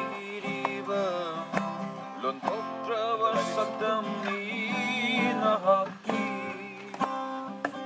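A man singing a slow song with wavering held notes, accompanied by a strummed acoustic guitar. The voice drops out about three-quarters of the way through while the strumming goes on.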